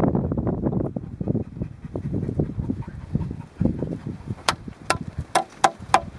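Wind buffeting the microphone with handling rumble, then about six sharp clicks or knocks in quick succession over the last two seconds.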